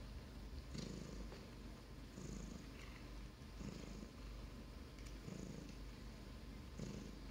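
Russian blue cat purring softly, in swells that come about every one and a half seconds with its breathing.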